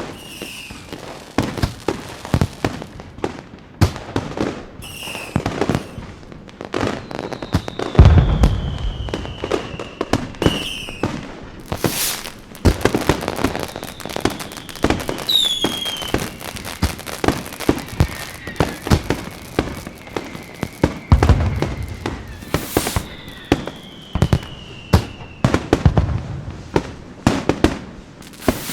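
Fireworks going off: rapid cracks and pops throughout, several deep booms, and whistling shells that fall slowly in pitch.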